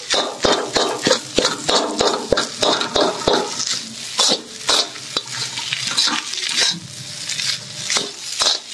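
Metal ladle scraping and knocking against a wok as fried rice is stir-fried, in quick irregular strokes, over a light sizzle.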